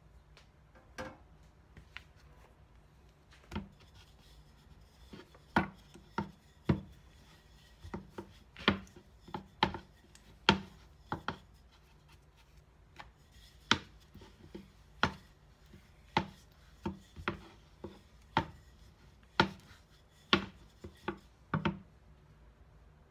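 Irregular sharp knocks and taps on a plastic cutting board as bakpia dough is pressed flat by hand and worked with a wooden rolling pin, about twenty in all, most of them in the second half.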